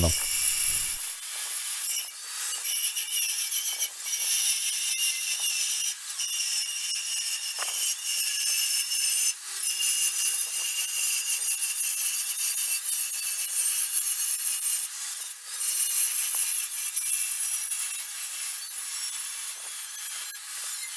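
Angle grinder with a cutting disc cutting through steel, played back fast-forwarded so it sounds high and scratchy. The grinding runs continuously, with a few brief dips.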